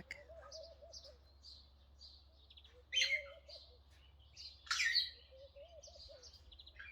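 Garden birdsong: small birds chirping again and again, doves cooing softly at intervals, and two loud harsh squawks about three and five seconds in, typical of parrots.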